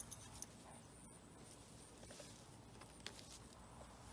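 Faint, occasional cracks of a Great Dane gnawing a log of firewood, over near silence.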